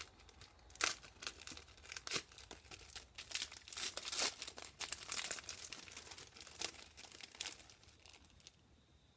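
Crinkly packaging of craft supplies being handled and torn open: irregular crackles and rustles that stop shortly before the end.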